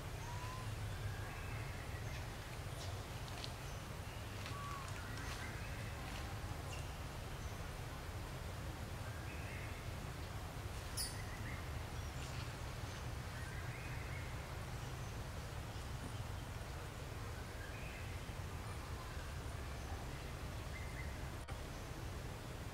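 Outdoor ambience: a steady low rumble with scattered short, high chirping calls every second or two and a few faint clicks, one sharper tick about halfway through.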